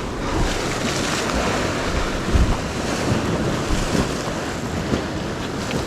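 Sea waves washing against the shore under a steady rush of wind buffeting the microphone, with a deep low rumble.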